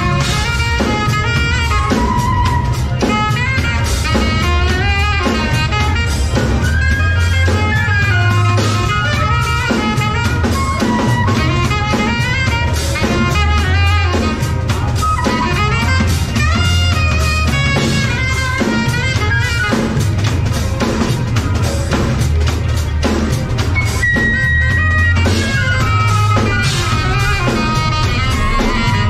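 Live jazz band with an amplified flute playing the melody over a drum kit and a deep bass line. The flute holds one long high note about 24 seconds in.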